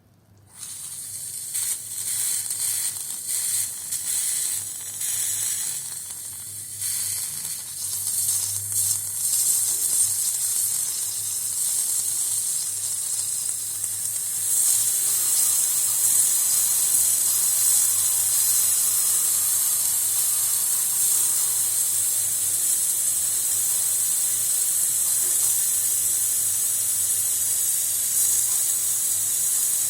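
Air hissing out through the threaded connection of a heating system's automatic air vent once its ball valve is opened. It sputters and spits irregularly at first, then settles about halfway through into a loud, steady hiss. The air is escaping through the thread rather than the vent's own outlet, a sign of a leaking joint or a faulty vent.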